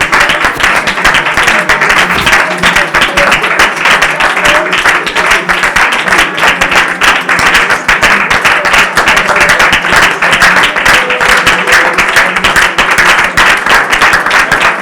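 A congregation clapping densely and continuously, with music underneath.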